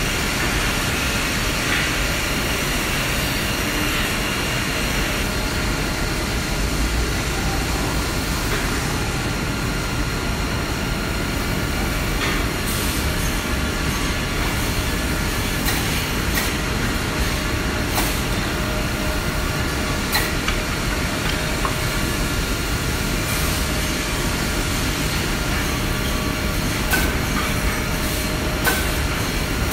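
Steady mechanical running of a high-speed defect-cutting cross-cut saw line and its outfeed belt conveyor. Irregular sharp wooden clacks from the cut pieces come now and then, mostly in the second half.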